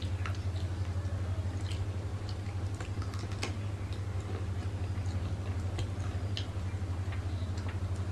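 Eating by hand, rice and mutton curry off a banana leaf: scattered short clicks and smacks of chewing and fingers working rice, over a steady low hum.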